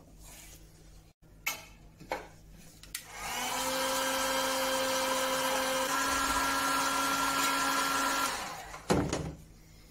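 Electric heat gun running: a steady rush of air with a fan whine, blowing hot air onto a glued wooden joint to soften the adhesive. It starts up about three seconds in and runs for about five seconds before winding down. A few light knocks come before it and one knock after.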